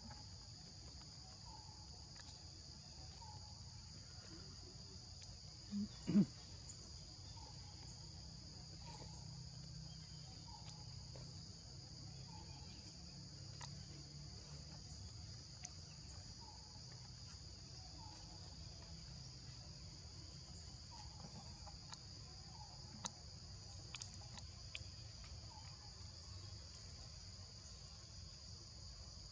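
Steady, high-pitched outdoor insect chorus, with two soft thumps about six seconds in.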